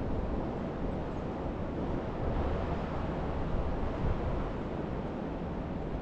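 Ocean surf, a steady wash of breaking waves, with a low wind rumble on the microphone.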